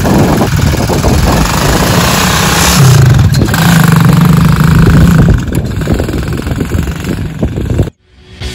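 Quad bike (ATV) engine revving as it pulls away across sand, its pitch rising for a couple of seconds, then growing fainter as it drives off. Near the end the sound cuts out abruptly and music begins.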